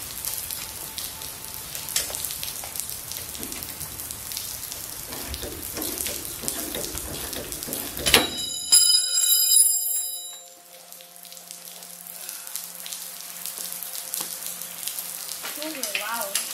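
A ratchet clicking on the engine-mount nuts of an aircraft engine, then about eight seconds in a steel wrench drops onto the concrete floor with a loud clang that rings for about two seconds.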